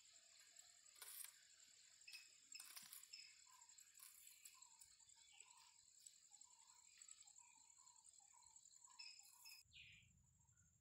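Faint rural outdoor ambience: a steady high insect drone of crickets with scattered short bird chirps and a few light clicks. Near the end the drone drops away and a low rumble comes in.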